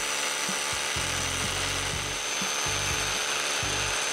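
Bosch cordless hammer drill running at a steady speed with a high whine, its bit boring into wood.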